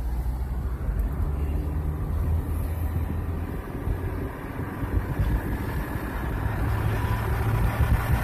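Car engine and tyre noise heard from inside the cabin while driving: a steady low hum over road rumble. The engine note rises a little in the second half as the car picks up speed.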